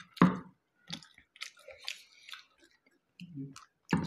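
People chewing steamed momos (dumplings): a string of short, irregular eating sounds.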